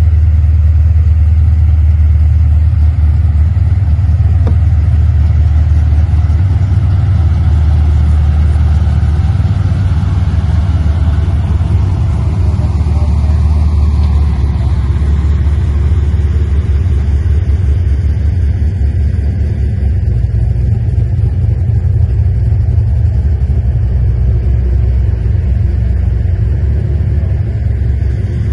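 Supercharged V8 car engine and exhaust running at a steady cruise: a loud, deep, even rumble without big rises or falls in revs.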